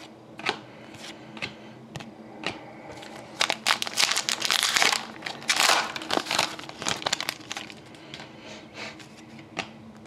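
Foil wrapper of a trading card pack being torn open and crinkled: a dense crackling from about three and a half seconds in to about seven seconds in. Before it come a few light clicks as cards are handled.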